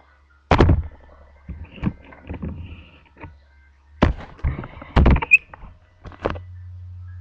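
Handling noise from a camera being carried and moved: about five sharp knocks and thumps, the first about half a second in and the rest clustered around 4 to 6 seconds, with scuffing and rustling between them and a brief squeak. A low hum picks up near the end.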